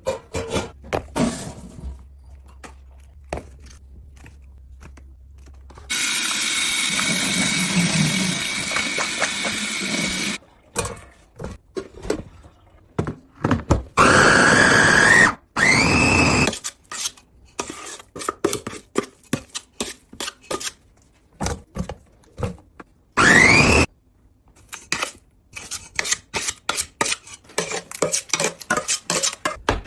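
Kitchen food-preparation sounds in sequence: scattered knocks and taps, then a steady machine-like run of about four seconds, then two short rising whines. Many quick taps follow through to the end.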